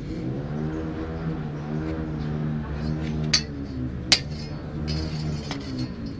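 A motor vehicle engine running in the background, its pitch slowly rising and falling. About three and four seconds in there are two sharp metallic clinks as a steel square is handled on the wooden block.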